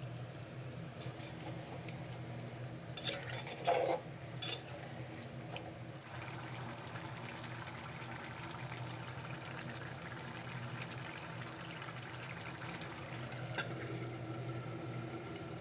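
Water poured into an aluminium pot of spiced rice, then the liquid simmering and sizzling steadily. A few loud metal clinks and knocks come about three to four seconds in, and a single sharp clink near the end as the aluminium lid goes on.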